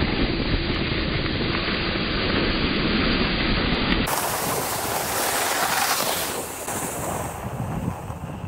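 Wind rushing over the microphone in open country, a steady noisy roar with low buffeting. About four seconds in, the sound changes abruptly to a thinner hiss that fades off.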